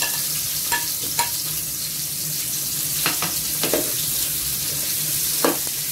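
Sliced red onion and minced garlic sizzling in hot oil in a large aluminium stockpot as they are sautéed. A metal spoon stirs them, knocking against the pot several times.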